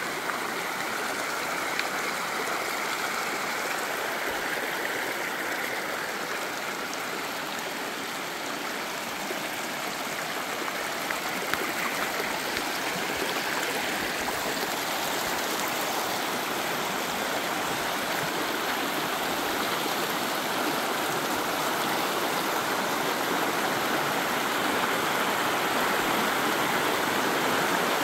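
Shallow, rocky stream babbling as water runs through gaps in a low line of stacked stones and over riffles: a steady rushing that grows a little louder in the second half.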